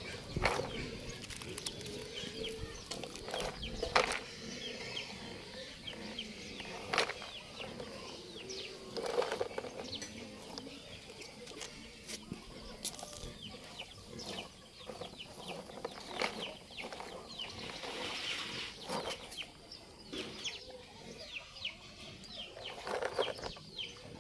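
Scattered clicks and knocks of stones and a plastic toy dump truck being handled on gravel, a few seconds apart, over a quiet outdoor background with faint bird calls.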